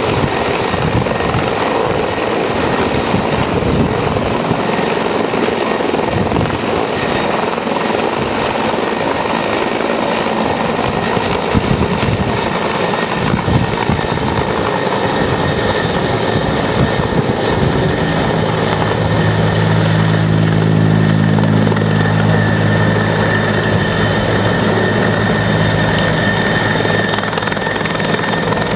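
Police helicopter's rotor and turbine running loudly and steadily as it works a water bucket for firefighting. About two-thirds of the way in, a steady low hum joins it.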